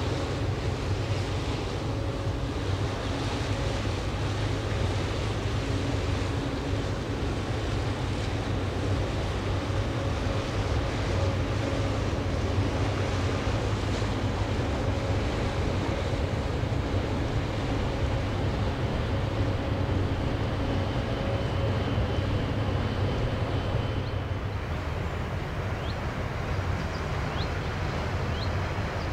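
Steady low rumble of a passing cruise ship's engines, with faint steady hum tones and wind noise on the microphone. Near the end the hiss thins out and a few short bird chirps come in.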